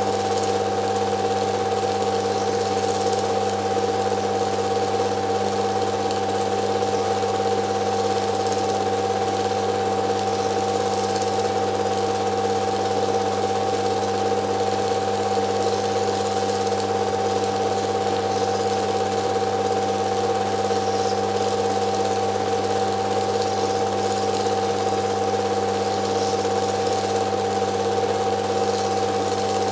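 Film projector running: a steady mechanical whir with a constant hum over hiss, unchanged across the picture cuts.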